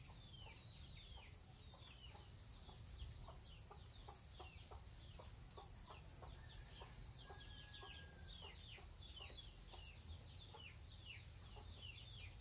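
Faint rural ambience: many short bird calls, each falling in pitch, about three a second, over a steady high-pitched insect drone.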